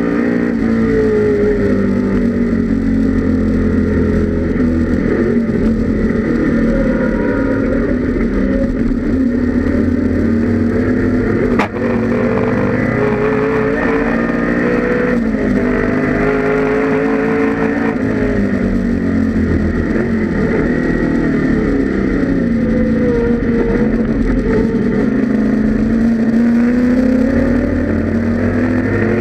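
1984 Ford Mustang GT Group A's 5.0-litre V8 racing engine running hard on track, heard from on board, its pitch falling and rising as the car brakes, shifts and accelerates, with a brief break about twelve seconds in.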